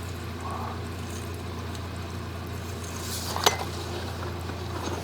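Steady low hum with a single light clink about three and a half seconds in.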